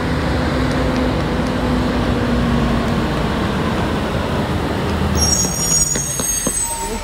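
Heavy tractor unit's diesel engine running as it slowly hauls a low-loader trailer carrying a railway car past, a steady low drone. A high squeal sounds from about five seconds in for under two seconds.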